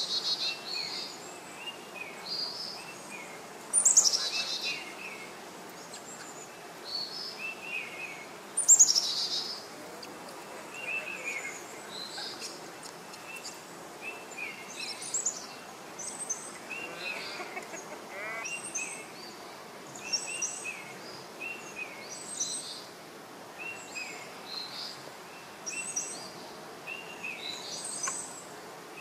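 Several birds calling: short chirps repeat over and over, and two loud downward-sweeping calls come about four and nine seconds in.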